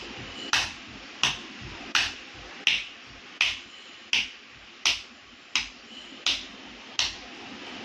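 Bare feet stamping on a tiled floor in a steady beat of Indian classical dance footwork: about ten sharp slaps, evenly spaced at roughly three every two seconds.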